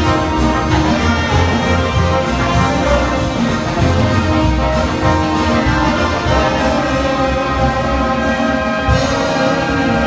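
Big band playing live: saxophones, trombones and trumpets together in full ensemble over a steady beat.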